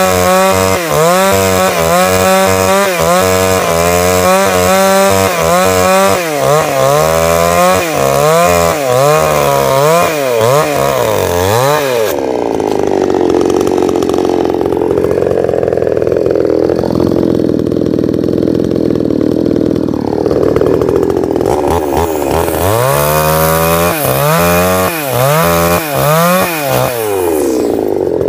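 Two-stroke gasoline chainsaw cutting through a log, its engine pitch rising and falling over and over as it bogs under load and revs back up. About twelve seconds in its sound turns duller and steadier for roughly ten seconds, then the rising-and-falling revving returns near the end.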